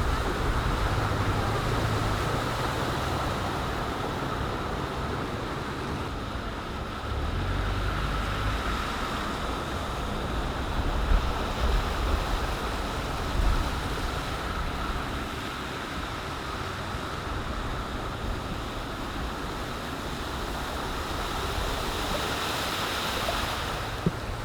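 Ocean surf washing steadily, with wind buffeting the microphone in a low rumble and a couple of brief louder gusts partway through.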